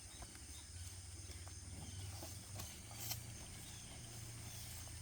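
Cows eating popcorn stalks, with a few faint crunches and rustles, the clearest about three seconds in, over a steady high insect drone.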